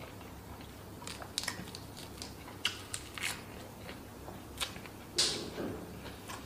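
A person chewing food close to the microphone, with scattered small crunches and mouth clicks and one louder crunch about five seconds in.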